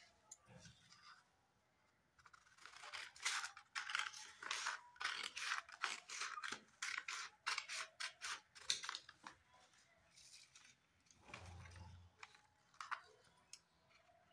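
Scissors cutting through paper: a run of quick, crisp snips starting about two seconds in, thinning out after about nine seconds, with a soft low thump near twelve seconds.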